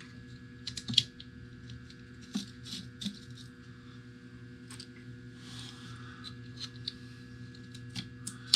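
Light clicks, taps and short scrapes of a small screwdriver and plastic goggle parts as the screws holding a Fat Shark DVR board are taken out, over a steady low hum.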